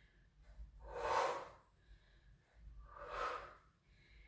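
A woman breathing out hard twice, about two seconds apart: the effort breaths of someone doing weighted lunges.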